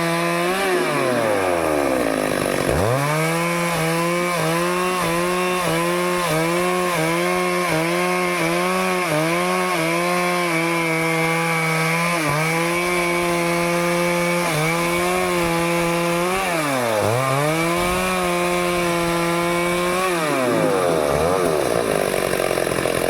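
Stihl two-stroke chainsaw at full throttle cutting into teak wood, its high engine note wavering as the chain bites. The revs drop and climb back again about 2 s in, about 17 s in and near the end.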